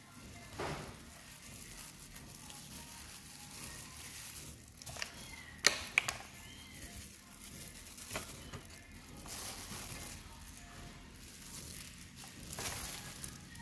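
Disposable plastic glove crinkling and rustling as a hand scatters grated cheese, with a few sharp clicks, the two loudest about halfway through.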